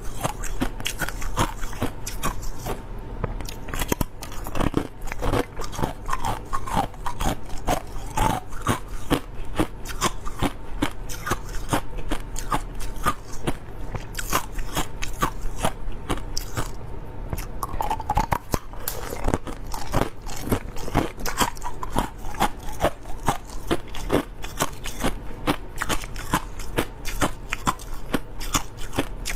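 Clear crushed ice being chewed close to the microphone: a dense, continuous run of sharp crunches and cracks with no pause.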